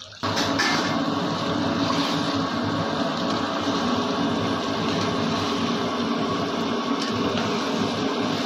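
A steady, even machine-like noise that starts abruptly about a quarter second in.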